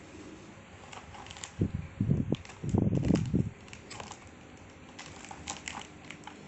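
A parcel being handled and unpacked: scattered small clicks and crackles of packaging, with two louder dull bumps of handling noise about two and three seconds in.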